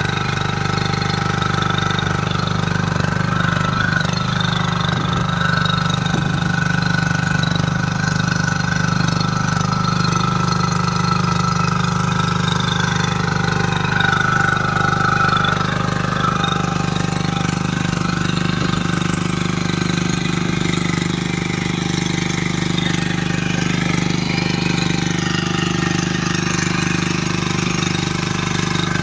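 Walk-behind rotary tiller's small air-cooled single-cylinder diesel engine running steadily while its tines churn soil. Its pitch wavers a little in the second half as the load on the tines changes.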